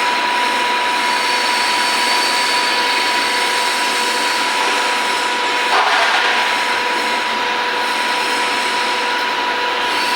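Lathe running steadily with a constant whine over a mechanical hiss, with a brief louder burst of noise about six seconds in.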